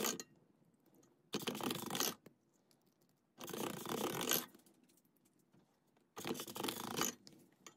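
Hand-crank stainless steel pasta machine turning, its rollers pressing a sheet of polymer clay as it is conditioned: three rough bursts, each about a second long, with short pauses between.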